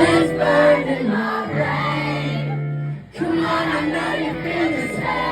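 A live band plays with singing. The music drops out briefly about three seconds in, then comes back.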